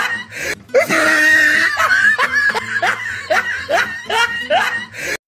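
Laughter: a quick run of rising 'ha-ha' bursts, about three a second, with a longer held stretch about a second in, over a steady music bed. It cuts off abruptly near the end.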